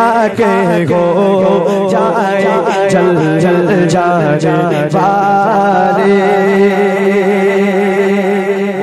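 A man singing a naat in a long, wavering, ornamented vocal line over a steady held low drone.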